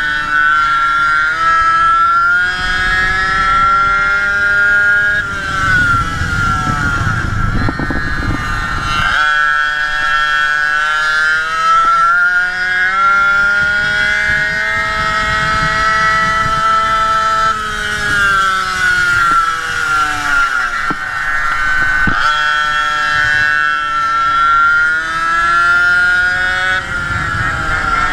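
Two-stroke Go-Ped racing scooter engine running at high revs, its pitch climbing on the throttle and dropping off twice, about five seconds in and again around eighteen to twenty-one seconds, as the throttle is eased for corners. A low rumble of wind on the microphone comes in around six to nine seconds.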